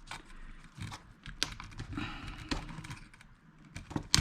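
Scattered sharp clicks and taps of hand tools on a small metal-can transistor as it is broken open, the loudest just before the end.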